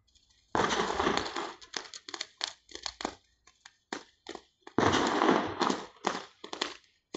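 Fireworks going off in rapid crackling bangs: a dense run of quick cracks, then scattered single cracks, and a second dense run after about five seconds.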